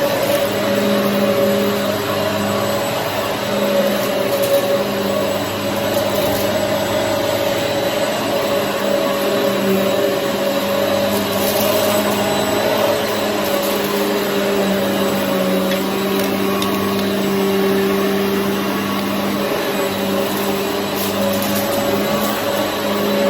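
Hoover EliteSwivel upright vacuum cleaner running continuously, a steady motor drone whose pitch wavers slightly as it is worked across the floor.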